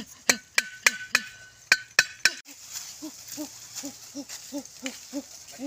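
Machete blade striking a wooden stake, driving it into the ground: about seven sharp knocks in the first two seconds, each with a brief metallic ring. From about three seconds in, a low hooting call repeats two or three times a second.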